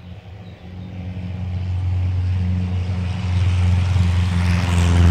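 Light propeller airplane's engine droning, growing steadily louder as it approaches.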